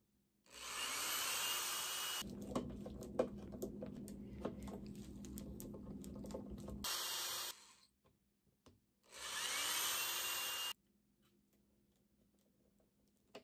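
Black+Decker corded drill running in three short bursts, its motor whine rising each time it spins up, driving screws for a drawer-guide bracket. Between the first two runs there is a steady low hum with scattered light clicks.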